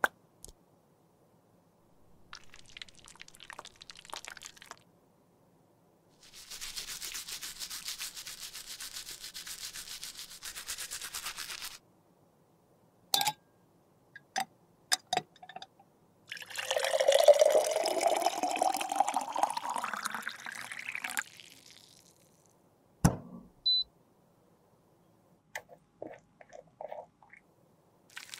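Close-up handling sounds from cosmetic repair: light scratching and clicks of small plastic jars, a few seconds of steady fine hiss, then liquid poured into a container, its pitch rising as the container fills. A single sharp knock and a few soft clicks follow.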